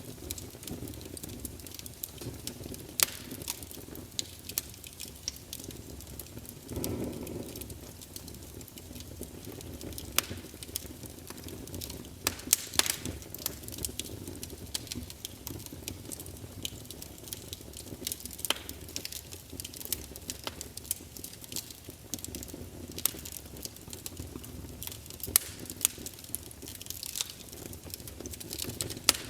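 Wood fire crackling, with frequent sharp pops over a steady low rumble of the flames; a brief louder low swell comes about seven seconds in.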